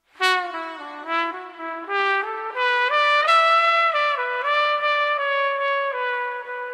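Solo trumpet playing a slow jazz ballad phrase. It comes in sharply after a moment of silence, climbs note by note to a high note about three seconds in, then settles onto longer held notes.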